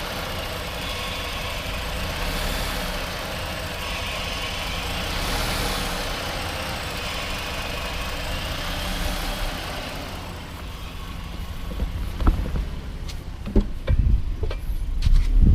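Freshly rebuilt 3.7-litre V6 idling, its idle rising and falling, which the owner suspects is a vacuum leak. Near the end the engine sound drops back and a few sharp thumps are heard.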